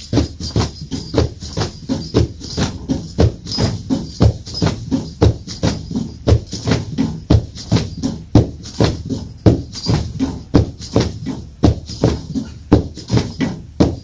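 Heavy battle ropes slapping down in quick waves, a steady rhythm of sharp smacks several times a second.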